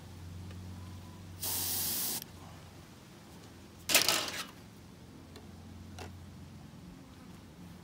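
Airbrush spraying paint in short bursts of hiss: one of under a second about 1.5 s in, and a louder one with a sharp start about 4 s in. A low steady hum runs underneath.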